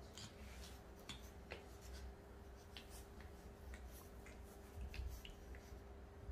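Faint scratchy rubbing and scattered light clicks from two puppies, a French Bulldog and a Chihuahua, scuffling as they play-wrestle on a shaggy rug. A steady faint hum runs underneath.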